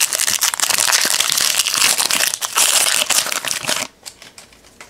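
Plastic wrapper of a football trading-card pack crinkling as it is torn open and handled, for about four seconds, then stopping sharply; a few light clicks of cards follow.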